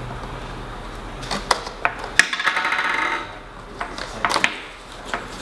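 Scissors snipping at the seal of a cardboard retail box: several sharp clicks, then a rasp lasting about a second. A few more clicks follow as the scissors are set down on the table and the box is handled.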